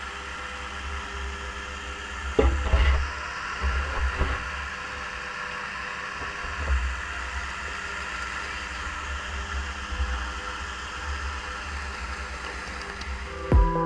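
Water splashing and churning around a fishing gig jabbed into lit shallows, with a few louder splashes about two and a half and four seconds in, over a steady mechanical hum.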